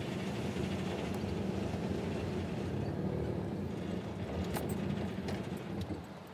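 Vehicle running and rolling slowly, heard from inside the cab: a steady low rumble with a few faint clicks and knocks, dropping away shortly before the end.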